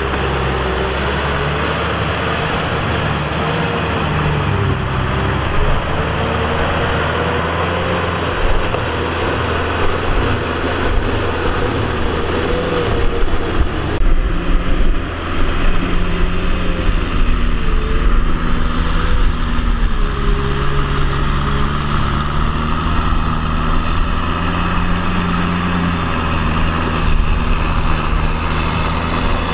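Kubota M6040 tractor's diesel engine running steadily while working a paddy field, its pitch wavering slightly up and down as the load changes.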